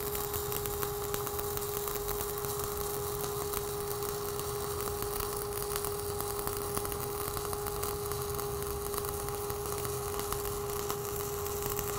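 Stick-welding arc of a 3/32-inch 7018 rod at 90 amps, running a vertical-up cap pass on steel plate: a steady crackling sizzle with a steady hum underneath. The arc cuts off right at the end.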